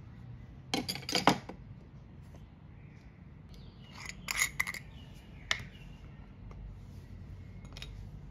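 A glass skincare cream jar being handled and its plastic screw lid twisted open. The sound comes as a few groups of sharp clicks and scrapes: the loudest about a second in, another around four seconds in, then single clicks later.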